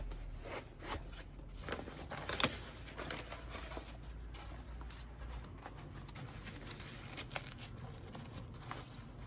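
Hands handling a set of metal ratcheting wrenches and their pouch: scattered clicks and scraping, rustling handling noise, with a few sharper clicks in the first few seconds.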